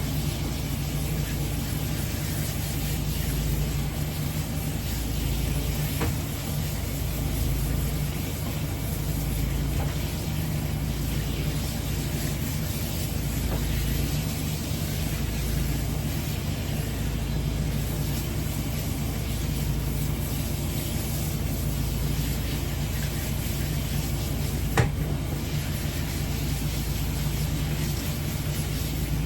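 Water spraying steadily from a bath sprayer while the shampoo is rinsed off a small dog, with a steady low hum underneath. A single sharp click sounds near the end.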